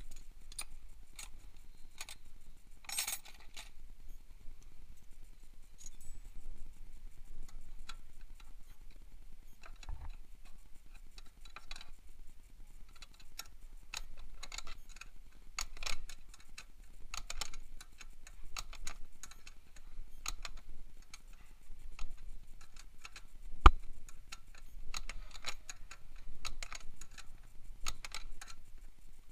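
Steel hand tools clinking, then a wrench working the rear axle nut of a mini dirt bike: irregular light metallic clicks and ticks, with one sharp knock late on.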